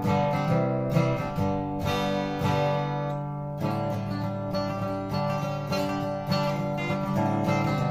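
Guild DV52 acoustic dreadnought guitar, with a spruce top and rosewood back and sides, strummed in open chords. The bass shifts with a change of chord about three and a half seconds in.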